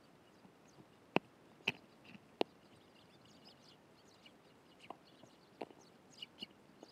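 Eurasian tree sparrows chirping faintly and sporadically, with scattered sharp taps and clicks, the three loudest close together in the first half.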